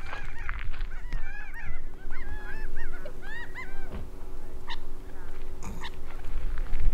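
Gambel's quail calling: a run of short, arched, overlapping calls that is dense for the first three and a half seconds and then thins out to a few scattered notes.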